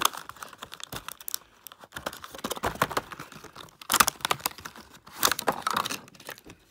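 A toy's blister pack of card and clear plastic being torn open by hand: irregular crinkling, tearing and clicking in several bursts.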